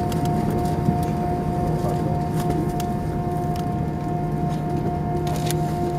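Steady cabin hum inside an Airbus A319 on the ground before takeoff: engines at idle and cabin air, with a few constant droning tones and occasional faint clicks.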